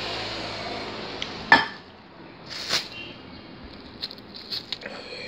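Tableware sounds at a meal: a cup set down on the table with one sharp clink about a second and a half in, then a softer knock and a few light clicks of handling food.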